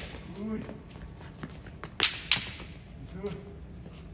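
Bamboo kendo shinai striking in basic-strike practice: two sharp cracks in quick succession about two seconds in.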